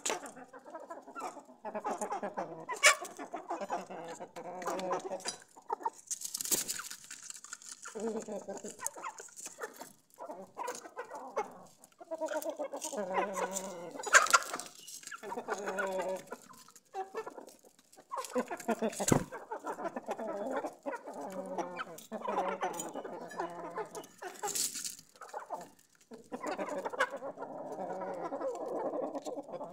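Aseel chickens clucking in repeated short calls, with a few sharp clicks now and then.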